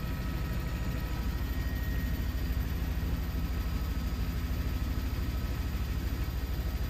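Steady low rumble of jet aircraft engines from a formation of six jets flying past, even in level.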